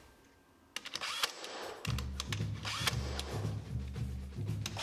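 DeWalt nailer driving nails into hardwood floorboards: a few sharp shots about a second in and more later. Background music with a bass line comes in about two seconds in.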